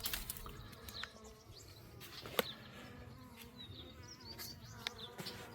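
Honey bee swarm buzzing: the faint, steady hum of many bees clustered close by, with a few sharp clicks, the strongest about two and a half seconds in.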